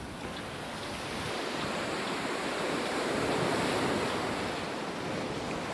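Ocean surf breaking and washing up a sandy beach, a steady rush that swells to its loudest about halfway through and then eases.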